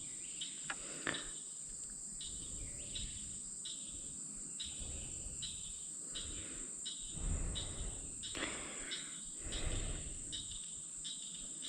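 Outdoor insect chorus: a steady high-pitched buzz with a repeated chirp about twice a second, typical of crickets and katydids. Two low rustling bumps break in past the middle.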